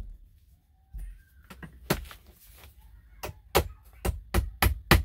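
Hammer striking plastic PEX talon clips to tack the water lines to the framing: a series of sharp taps, one about two seconds in and a quick run of about six near the end.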